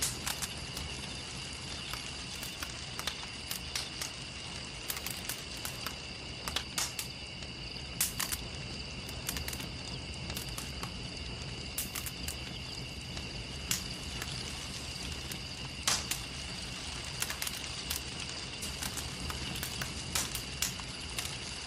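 Wood fire crackling, with irregular sharp pops over a steady low hiss. A steady high-pitched insect-like chirring runs underneath.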